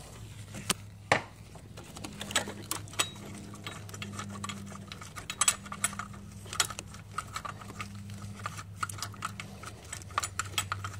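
Two loosened bolts and a small metal bracket being taken off by hand, with scattered light metallic clicks and rattles over a steady low hum.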